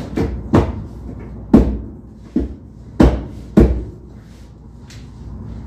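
Six sharp plastic-and-metal clacks in about four seconds as the cold room's wall-mounted control box is worked by hand, with a steady low hum beneath.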